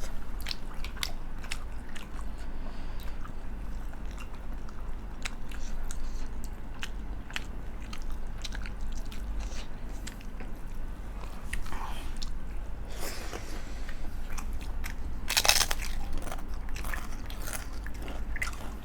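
Close-miked eating: a person chewing with wet mouth clicks and smacks, with a louder crunchy bite about fifteen seconds in.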